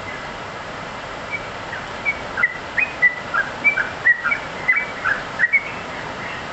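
Caged yellow-vented bulbul (trucukan) in full song: a quick run of short chirping notes starting about two seconds in, over a steady background hiss.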